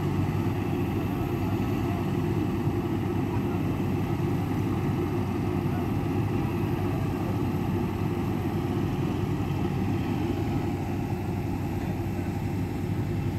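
A steady, low engine drone with a constant hum, unchanging in level.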